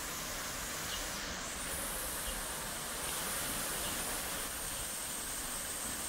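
Steady rush of waterfall water, with a constant high-pitched insect drone over it.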